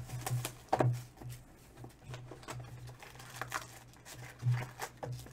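Foil wrapper of a basketball trading-card pack being torn open and crinkled by hand: an irregular run of crackling rustles, the loudest about a second in and again near the end, over a low steady hum.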